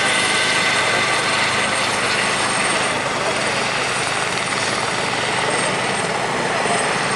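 Eurocopter EC130 helicopter flying past low, a steady mix of turbine and rotor noise with a thin high whine, easing off slightly after about three seconds.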